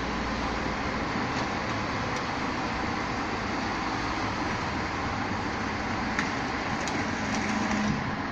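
Rotopress rotating-drum garbage truck running steadily at the kerb while bulky waste is loaded at the rear. A few short knocks of junk going in, and a brief low hum with a rise in level near the end.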